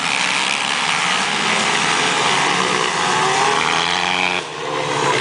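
Several motocross dirt bikes racing on a dirt track, their engines revving hard together, with a short drop in the noise about four and a half seconds in.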